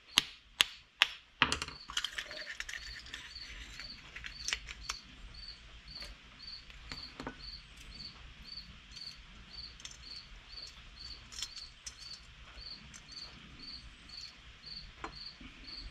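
Sharp metal clicks and taps from a small engine carburetor being taken apart by hand, loudest in the first second and a half, then occasional light clinks. Behind them a cricket chirps steadily, about two to three chirps a second.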